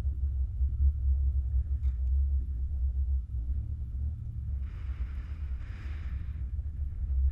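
Steady low rumble of a car driving slowly, heard from a mount on its hood. About five seconds in, a hiss rises for under two seconds and then stops.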